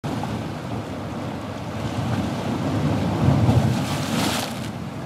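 Wind buffeting the microphone over the rushing, churning water of a cruise ship's wake, with a louder hissing swell about four seconds in.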